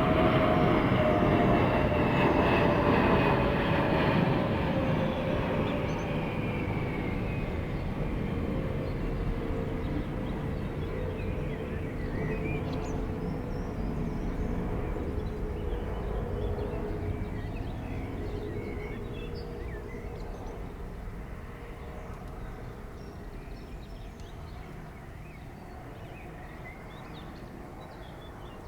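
Jet airliner on landing approach passing low overhead: engine noise is loudest at the start, and its whine falls in pitch as it moves away, then slowly fades. Faint bird chirps come through as it dies down.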